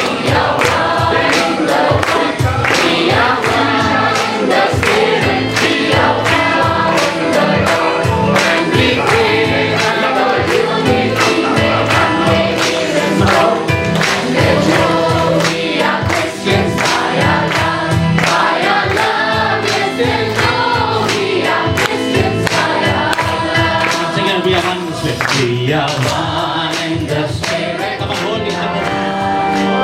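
Congregation singing a gospel worship song as a choir, over instrumental backing with a steady beat.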